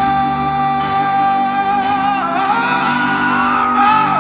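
Male rock singer holding one long note, then sliding up to a higher note and holding it, with the band playing underneath, heard from the audience seats of a large arena.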